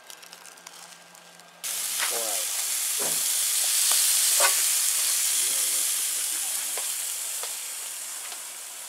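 Meat sizzling on a hot grill grate, starting suddenly about one and a half seconds in and slowly fading, with a few short clicks.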